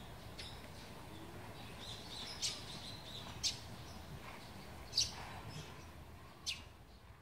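Bactrian camel chewing a mouthful of fresh grass, with a crisp crunch of the stalks every one to two seconds. Faint bird chirps sound behind it.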